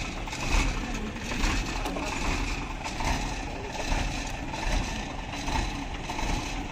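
Heavy truck engines running steadily with a low rumble.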